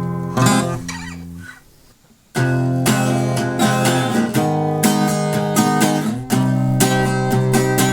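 Acoustic guitar: a final strummed chord rings out and fades to near quiet, then about two and a half seconds in a new steady strumming pattern begins.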